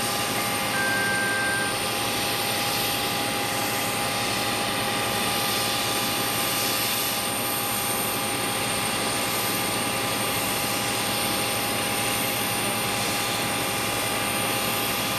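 Steady jet-turbine whine and rushing noise from a parked Boeing 737-800, with several unchanging high tones. A short beep sounds about a second in.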